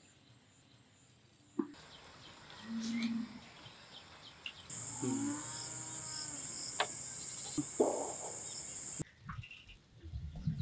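Village ambience: a cow lowing once about five seconds in, over a steady high insect drone that starts around the same time and cuts off suddenly near nine seconds.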